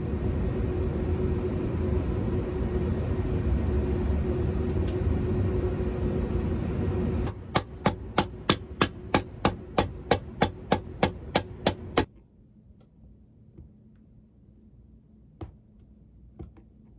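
A steady hum for the first seven seconds or so, then a shoemaker's hammer rapidly striking a leather heel lift on a boot heel, about four strikes a second for some four seconds, stopping abruptly. After that it is quiet but for a few faint ticks.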